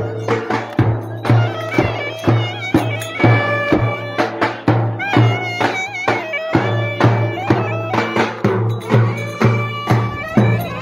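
Turkish folk dance music: a reedy wind instrument plays a trilling, ornamented melody over a steady drum beat.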